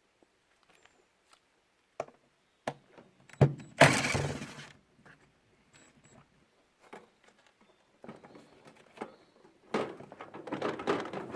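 Disassembly handling noise from a washing machine: a few clicks, then a loud knock about three and a half seconds in followed by about a second of rattling, and near the end a run of knocks and clattering as parts and tools are handled.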